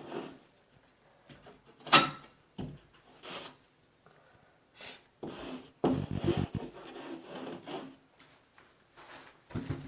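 Handling noises as mesh drywall tape is put on the wall: a sharp knock about two seconds in and a short rattling scrape around six seconds, with softer rustles and taps between.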